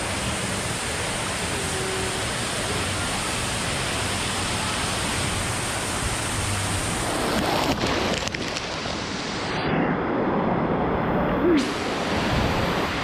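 Rushing, churning water of a fast wave-driven tube river, with splashes. About three quarters of the way in, the sound turns muffled for about two seconds, then comes back clear.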